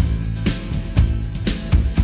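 Instrumental backing track: a steady beat with drum hits about twice a second over a bass line.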